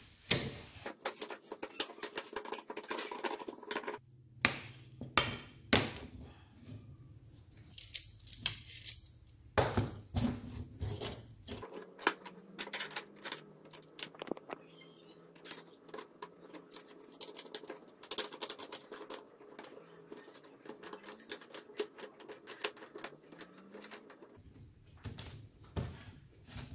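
Handling noise from a homemade steel clamp jig being worked on a block of wood: many scattered clicks, clinks and light knocks of metal and wood on a tabletop.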